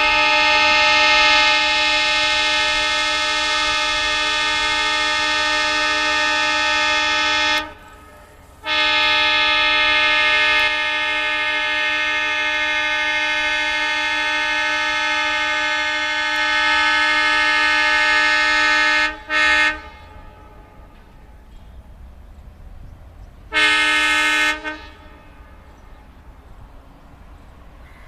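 Indian Railways WDM-3D diesel locomotive's horn blowing long, loud blasts: one of about seven and a half seconds, a brief gap, then another of about ten seconds ending in a short toot. After a few seconds of low rumble from the train, one more blast of about a second follows.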